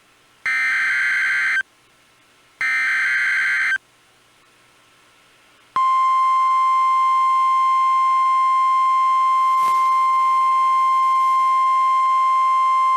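NOAA Weather Radio Emergency Alert System broadcast: the last two of the three SAME header data bursts, each a harsh electronic screech about a second long, a second apart. After a short silence, the weather radio's warning alarm tone starts about six seconds in and holds as one steady high pitch, announcing a tornado warning.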